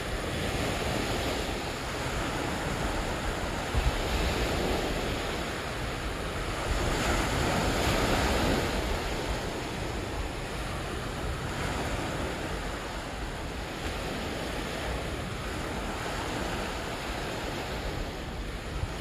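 Small waves washing onto a shore, swelling and easing, loudest about halfway through. Wind rumbles on the microphone underneath.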